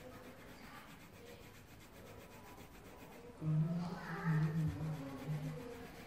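Faint rubbing, then from about three and a half seconds in a low, muffled voice in the background.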